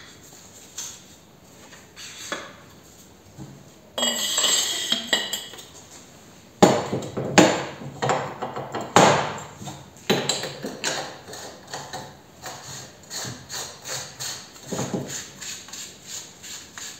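Metal knocks and clanks from a drained shock absorber strut being reassembled and worked in a bench vise. A short scraping rub comes about four seconds in, then a run of sharp knocks, about one or two a second, which turn into lighter, quicker ticks toward the end.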